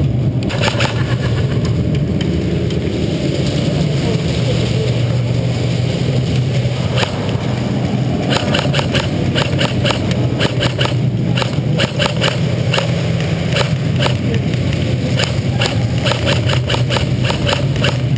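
Airsoft gunfire: a scattered run of sharp clicks and cracks from about eight seconds in, over a steady low drone.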